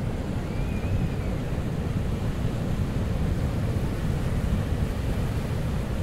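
Pacific Ocean surf washing in steadily on a sandy beach, with wind buffeting the microphone and filling the low end.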